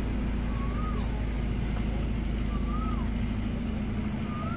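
Steady low drone of an idling engine, as from a parked truck or a generator beside the sound rigs. A short high call that rises and then falls sounds three times over it.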